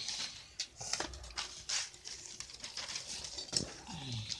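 Sheets of paper rustling and crinkling as they are handled and folded, in quick irregular crackles. Near the end, a short low sound that falls in pitch.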